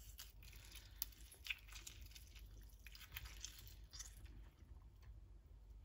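A lemon half squeezed by hand, giving a few faint clicks and crackles.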